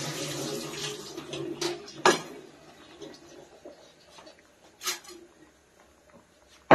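Water boiling around small potatoes in a wok on a gas stove: a bubbling hiss, strongest in the first couple of seconds and then fading. A few sharp clicks come about two seconds in, about five seconds in, and loudest at the very end.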